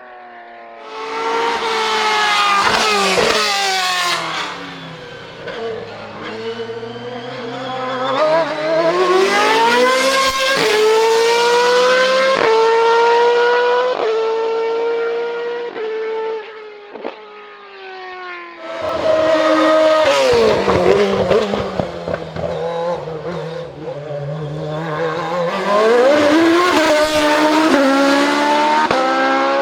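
Hillclimb racing prototype and formula car engines at full throttle, revving high. Engine pitch climbs and drops back sharply at each quick upshift, then falls away as the car lifts and slows, in repeated loud surges.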